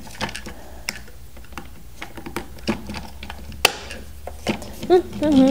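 Small toy pieces being handled, giving light, irregular clicks and taps, with one sharper click nearly four seconds in.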